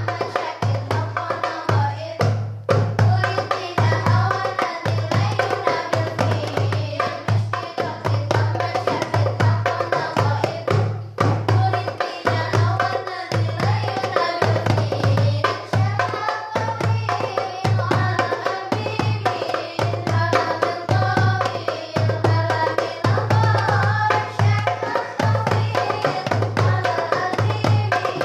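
Women singing sholawat, Islamic devotional song, to a hand-struck rebana frame drum with small metal jingles. The drum keeps a steady repeating beat of deep open strokes and sharper slaps.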